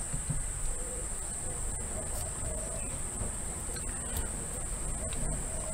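A steady high-pitched whine, even and unbroken, over faint low scuffs from a fine paintbrush working watercolour onto a small paper card.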